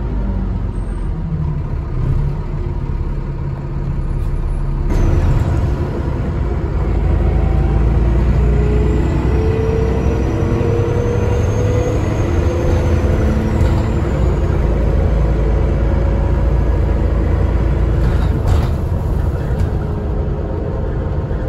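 Alexander ALX400 double-decker bus running under way, heard on board: a heavy engine rumble whose note climbs as it accelerates, with a high turbo whistle rising and falling in the middle. A sharp knock about five seconds in and another near the end.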